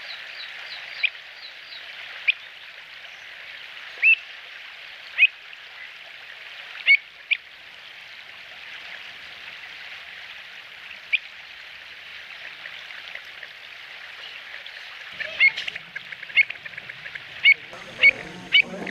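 Short, sharp bird calls over a steady hiss. The calls come a few seconds apart at first and quicken in the last few seconds.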